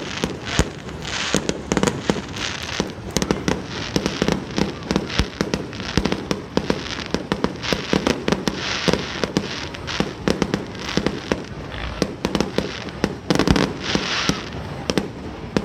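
Aerial fireworks going off in a dense barrage: bangs and crackling follow one another many times a second, with no pause.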